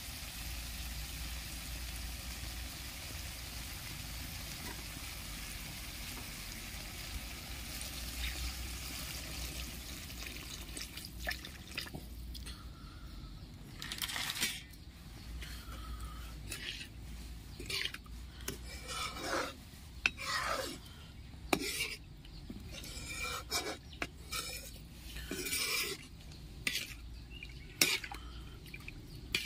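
Masala frying with a sizzle in a steel kadhai for about the first ten seconds. The sizzle then dies away, and a metal spoon scrapes and clinks against the pan again and again as a watery curry gravy is stirred.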